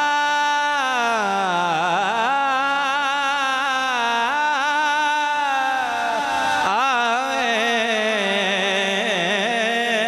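A man singing a naat into a microphone, drawing one long word out into an ornamented melody that rises and falls, with a short catch about seven seconds in.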